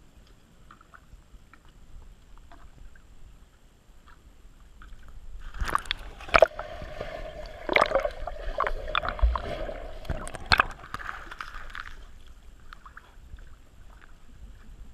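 Dog splashing and paddling in a swimming pool, heard muffled through a waterproof camera housing at the waterline. Faint water lapping at first, then about five seconds in a loud stretch of splashing with several sharp slaps that dies down again near the end.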